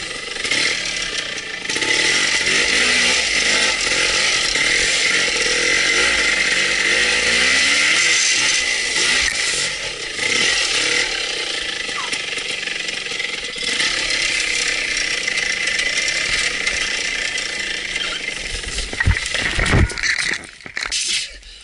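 Trial motorcycle engine running and revving as the bike picks its way over the ground, its pitch rising and falling. Near the end come a few heavy thuds and the engine sound drops away, as the bike goes down.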